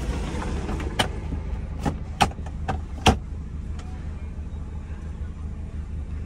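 A car engine running with a steady low rumble. About a second in, a handful of sharp, unevenly spaced clicks and knocks come from inside the car over about two seconds, typical of handling the gear lever and controls.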